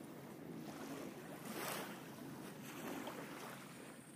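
Small waves of river water lapping at the bank: a soft wash that swells and fades a few times.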